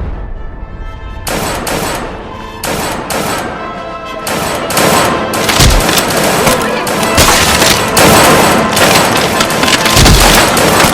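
A dense run of loud bangs like gunfire over music, a few a second at first, then packed closer and louder from about four seconds in.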